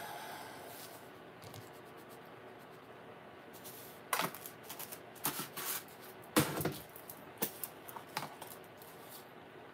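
Plastic kitchen containers and lids being handled on a counter: a scattering of short clicks, taps and rustles, the loudest about six and a half seconds in.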